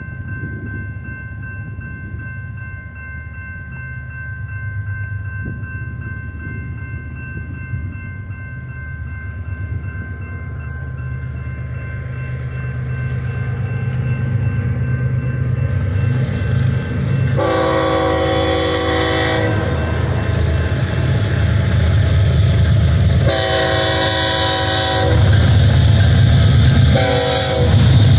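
Approaching BNSF freight train led by an ES44DC diesel locomotive: the low engine rumble grows steadily louder over a steady ringing crossing bell. From about halfway through, the locomotive horn sounds two long blasts and then a short one, the first part of the long-long-short-long warning for a grade crossing.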